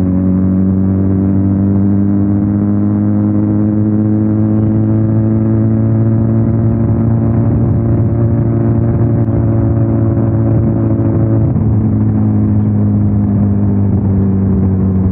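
Benelli 302R motorcycle's 300 cc parallel-twin engine running. Its pitch climbs slowly, then drops about eleven seconds in and holds steady.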